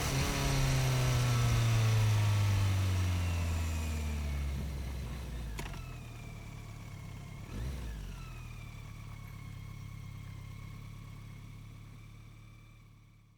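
BMW K1100 RS motorcycle's inline four-cylinder engine, its revs falling steadily for about five seconds and then running low and even before fading away near the end. There is a sharp click about five and a half seconds in and a thump near eight seconds.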